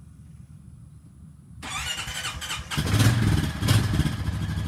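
2019 Honda Rancher ATV's single-cylinder engine cold-started on the electric starter after sitting a full day and night. About a second and a half in, the starter cranks it for about a second; then it catches and settles into a steady idle.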